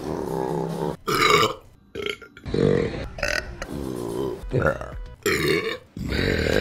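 Women burping, one loud belch after another: about six separate burps, some short and some drawn out, each cut off sharply where the next clip begins.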